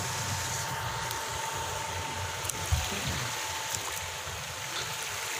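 Steady rush of running, splashing water, with a faint steady whine under it.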